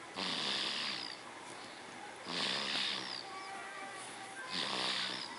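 A sleeping pet snoring loudly: three snores about two seconds apart, each a noisy breath with a low rattle under it.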